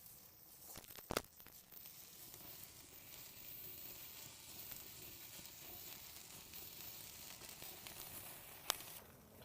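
Food sizzling faintly as it cooks, with two sharp clicks, one about a second in and one near the end.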